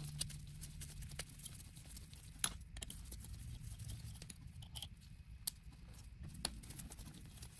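Faint, scattered metallic clicks of a T-handle hex key seating in and turning bolts out of an electric dirt bike's motor housing, with sharper single clicks about two and a half, five and a half and six and a half seconds in, over a low steady hum.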